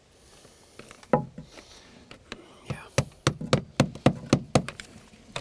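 Estwing claw hammer tapping on the metal drip edge and trim along a deck ledger board. A few separate knocks come first, then about three seconds in a quick run of light taps, roughly three to four a second.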